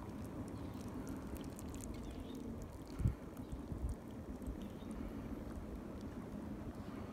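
Just-boiled water poured from a metal canteen into a steel cup over spruce tips in a tea diffuser, a steady pour. A single dull thump about three seconds in.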